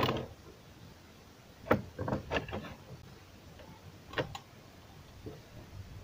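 Light clicks and knocks from handling the motherboard and socket hardware: a sharp click a little under two seconds in, a quick run of clicks just after it, and two more about four seconds in.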